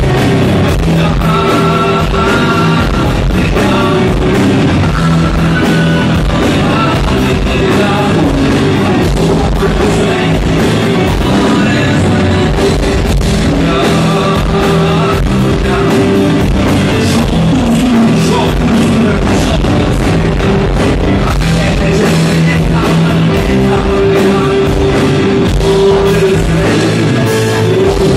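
A rock band playing live, with electric guitar, keyboard and drums under a male lead vocal, heard loud through the PA from within the crowd.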